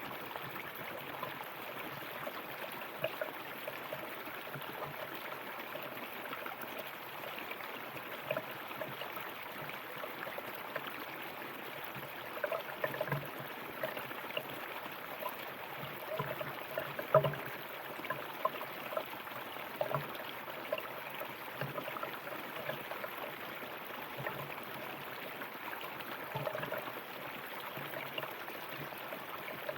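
Shallow river flowing steadily, with many small splashes and gurgles over the rocks; one louder splash about halfway through.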